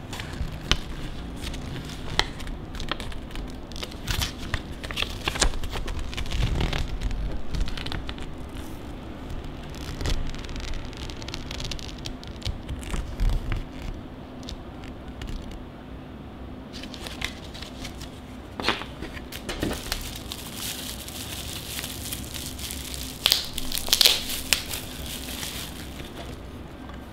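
A folded paper instruction leaflet being unfolded and handled, crinkling and rustling in scattered crackles. Near the end a louder burst of crinkling as the plastic-wrapped LED video light is picked up.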